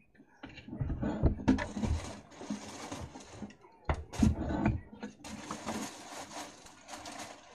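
Handling noise on a phone's microphone: rustling and rubbing, with two spells of heavy low thumps about a second in and again around four seconds in, then a lighter steady rustle.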